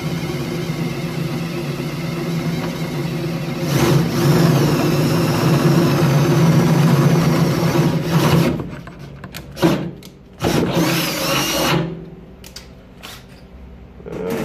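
Cordless drill drilling a hole through the rusty sheet-steel bottom of a charcoal grill. The motor runs steadily and gets louder with a high whine about four seconds in as the bit cuts, then stops. A short second burst of drilling and a few light knocks follow.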